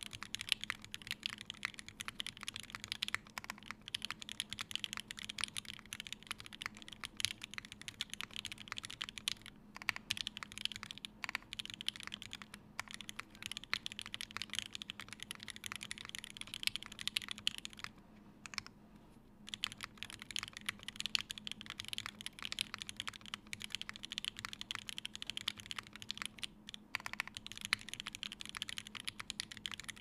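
Continuous fast typing on a TGR x Singa Unikorn mechanical keyboard with a brass plate, lubed 43 Studio Toy switches and GMK keycaps: a dense, irregular stream of key clacks, with a short pause a little past halfway.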